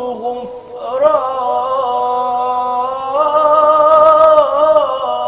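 A male munshid singing an Arabic religious ibtihal solo, unaccompanied, drawing out long ornamented held notes. There is a short break about half a second in, then the line resumes and swells loudest around four seconds.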